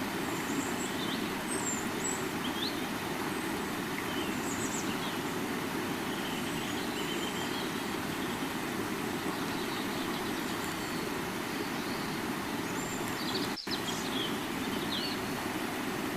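River water flowing in a steady, even rush, with small birds chirping here and there over it. The sound cuts out for an instant once near the end.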